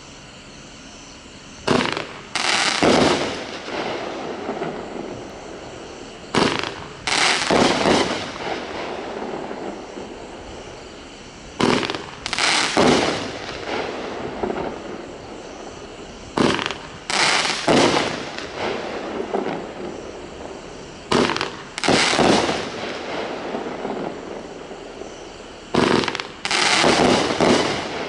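A 21-shot, 1.2-inch straight-fire fireworks cake firing. In six clusters about five seconds apart, shots thump out of the tubes and burst overhead about a second later, each cluster trailing off in crackling.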